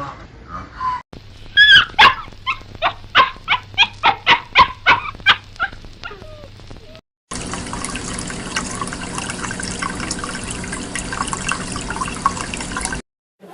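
An animal, dog-like, giving a run of about fifteen short, high yelping calls, about three a second, that fade away. After a sudden cut, a steady dense noisy chatter follows.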